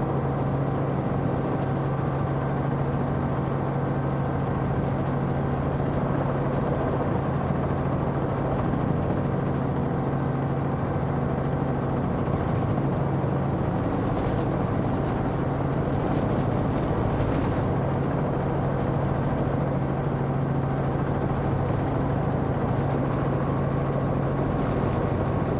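Helicopter running steadily, heard from inside the cabin: a constant drone with a strong low tone and several steady higher tones over a noisy rush.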